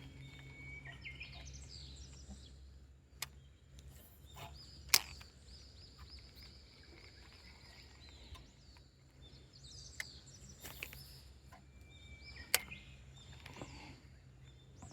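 Birds chirping and calling with short whistles, over a faint low hum that fades out about two seconds in. A few sharp clicks break in, the loudest about five seconds in.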